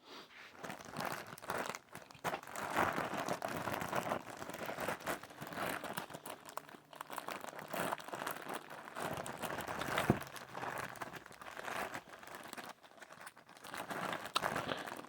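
Plastic bag of toy cars crinkling and rustling steadily as it is handled and pulled at to get it open, the bag being stapled shut. A single sharp click about two-thirds of the way through.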